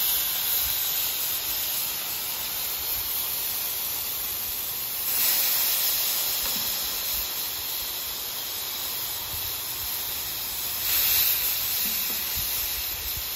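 Thin-sliced beef wet with au jus sizzling hard on a hot Camp Chef flat top griddle, the juice flashing to steam in a steady loud hiss. The sizzle swells twice, about five and eleven seconds in, as more wet beef goes onto the steel.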